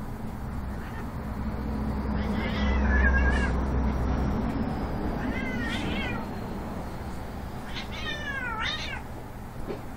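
A cat meowing three times, the last call the longest and falling in pitch, as it is pounced on by a play-fighting Shiba Inu puppy.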